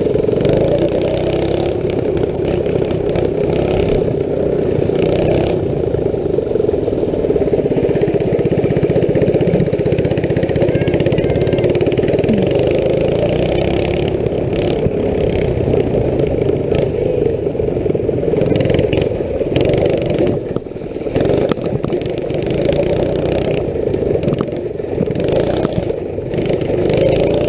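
Go-kart's small engine with an aftermarket exhaust, running hard as the kart drives along, its pitch wavering up and down with the throttle. It eases off briefly about twenty seconds in, then picks up again.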